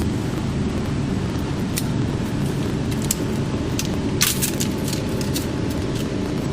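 Steady low machinery hum with a few light metallic clicks and clinks, a small cluster of them about four seconds in, as the welded steel and aluminum sheets are handled.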